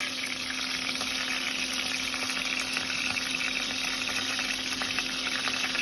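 Food frying in hot oil: a steady sizzle with small crackles and pops, with a steady low hum underneath.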